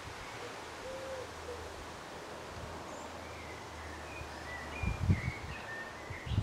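Outdoor background: short high bird chirps over a low steady hum that stops about five seconds in, followed by a few low thumps.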